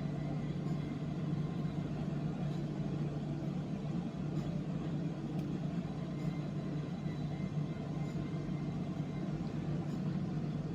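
A steady low hum of background noise, unchanging in level, with no distinct events.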